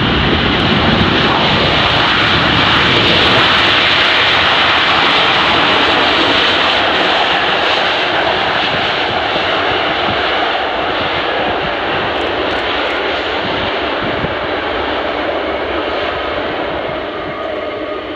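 Four turbofan engines of a Boeing 747-400F freighter giving a loud, steady jet roar as it lands and rolls out. It is loudest a few seconds in, then slowly fades.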